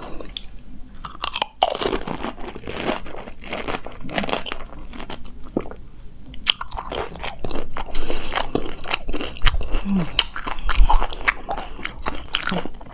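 A person eating a golgappa (pani puri): the crisp hollow puri, filled with potato and chickpeas and dipped in sour water, crunching and being chewed, with many short crisp crunches, thicker in the second half.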